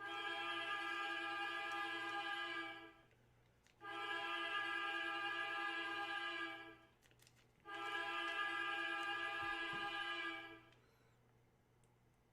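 Hockey goal horn blasting three times, each a long steady chord-like blast of about three seconds with short gaps between, played to celebrate a big hit.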